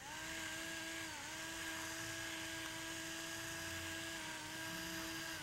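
Small electric pepper mill's motor running as it grinds black pepper: a steady whine over a gritty hiss, dipping briefly in pitch twice.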